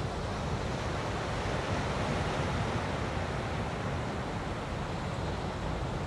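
Small surf waves breaking and washing up a Florida Gulf Coast beach: a steady rush that swells a little about two seconds in.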